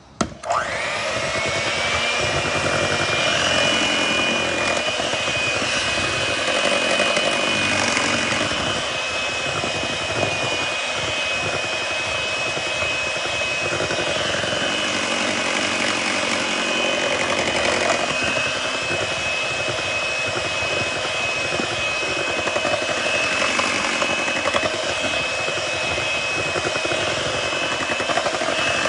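Electric hand mixer switched on about half a second in, its whine rising in pitch as the motor spins up, then running steadily as its beaters mix cake batter in a bowl.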